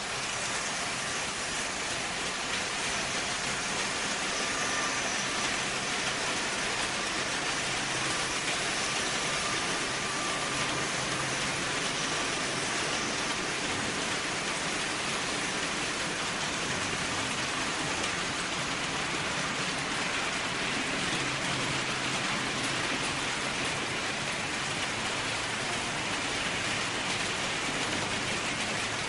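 Märklin HO model trains rolling on the layout's metal track: a steady, dense rattle of many small wheels on the rails that holds an even level throughout.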